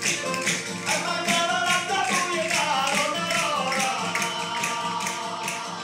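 Southern Italian tammurriata-style folk music: a tammorra frame drum with jingles beating a steady rhythm under a melody.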